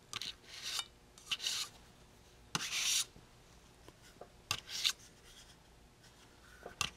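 Metal squeegee scraping solder paste across a metal PCB stencil in about five short strokes, the loudest about two and a half seconds in.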